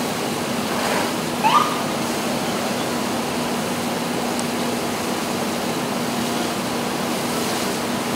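Fire hose stream spraying water into a burning garage: a steady rushing hiss with a steady low hum underneath. A brief rising squeal about a second and a half in.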